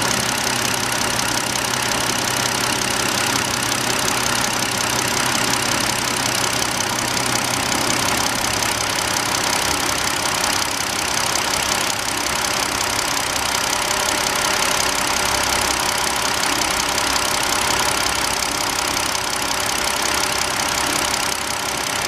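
2009 BMW 5 Series inline-six idling at about 660 rpm with an intermittent misfire: a few times the idle stumbles as a failing cylinder 3 ignition coil drops out.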